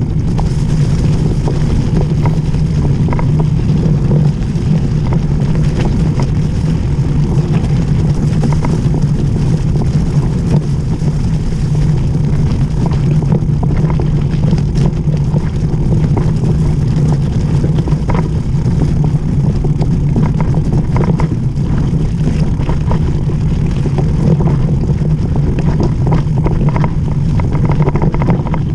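Steady wind rumble on the microphone of a mountain bike's action camera during a fast descent, with scattered clicks and rattles from the tyres rolling over loose gravel.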